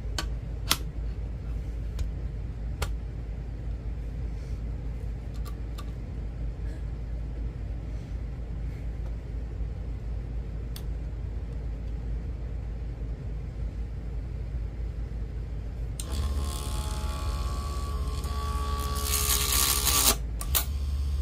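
A few scattered sharp taps over a low steady hum. Then, about three-quarters of the way in, a mini wood lathe's small electric motor runs with a pitched whine for about four seconds, with a loud scraping burst near the end of the run. It stops briefly and starts again just before the end.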